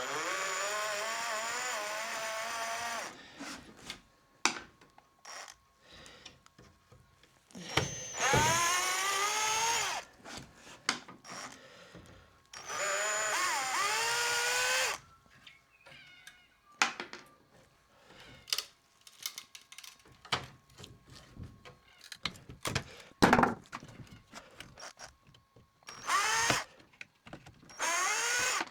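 Cordless right-angle drill with a flat-blade bit backing slotted screws out of window hardware, running in bursts of a couple of seconds with its motor whine changing pitch as the speed varies. Small clicks and knocks of handling come between the bursts.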